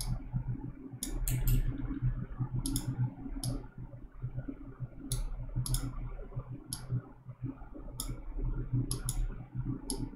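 Computer mouse button clicking at irregular intervals, often in quick doubles and triplets, over a steady low hum.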